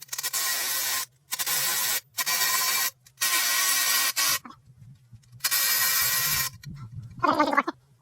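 Five bursts of pressurised spray hissing, each about a second long with short gaps between them. A brief voice-like sound comes near the end.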